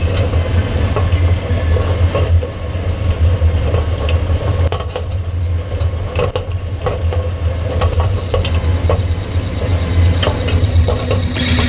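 Seedbed harrow (Potila Premium 6) working dry, cloddy soil: a steady gritty scraping and rattling with frequent sharp knocks, over the low drone of the Massey Ferguson 399 tractor pulling it.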